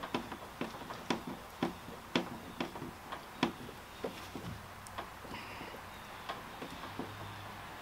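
Hand screwdriver driving a screw through a fitting into a plastic kayak hull: sharp clicks about two a second with each turn, thinning out and growing fainter after about three and a half seconds.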